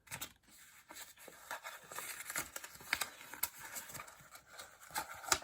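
A small folded envelope being opened out and handled in the hands: soft rustling and crinkling with many short, light clicks and taps.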